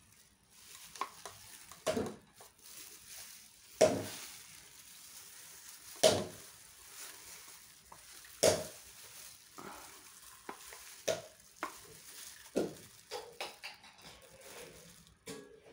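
Plastic gloves crinkling and a syringe stirring and knocking in a small plastic cup of liquid, with sharp clicks every two seconds or so, as a kitten's feed is drawn up.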